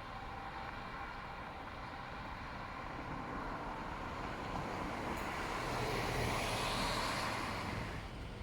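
A road vehicle passing close by: its engine and tyre noise swells over a few seconds, peaks, then fades away near the end.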